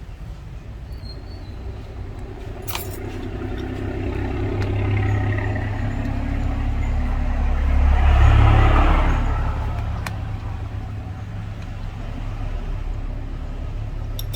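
Road traffic: a low engine rumble grows louder to a peak a little past the middle, as a vehicle passes, then fades. A couple of light clicks sound along the way.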